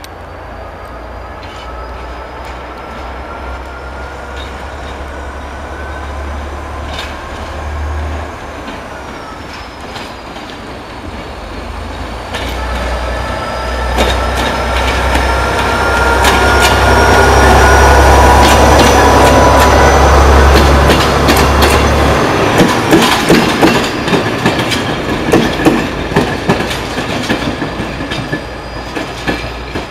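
Diesel railcar approaching and passing: a steady low engine rumble with thin squealing tones from the wheels, growing loudest about two-thirds of the way through. After that come rapid, uneven clicks as the wheels run over rail joints and points while it pulls away.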